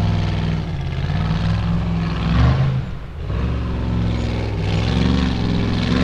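Formula offroad buggy's engine running hard under throttle as it climbs a steep dirt hill. The engine eases off briefly about three seconds in, then comes back on.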